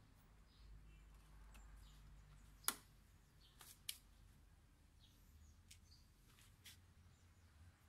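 Mostly near silence, with one sharp click about a third of the way in and two fainter clicks about a second later, as the stainless slip-on muffler is pushed home on the motorcycle's exhaust pipe.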